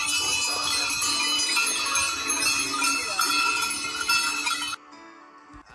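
Many goat bells ringing and jangling together as a herd of goats walks along. The sound cuts off abruptly about five seconds in, leaving something much quieter.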